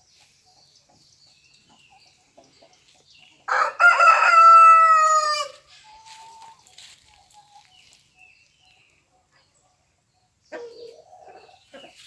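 A rooster crows once, loud and about two seconds long, a couple of short notes running into a long held note that drops in pitch at the end. Hens cluck faintly around it, with another short call near the end.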